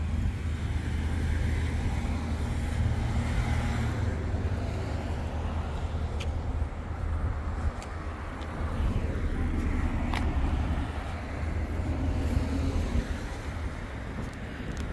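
Road traffic: cars passing, a steady low rumble with the tyre and engine noise swelling and fading twice.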